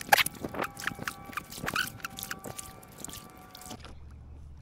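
Kayak paddling: water splashing and dripping off the paddle blades with light clicks and knocks on the hull. Near the end the splashing stops and a low steady hum is left.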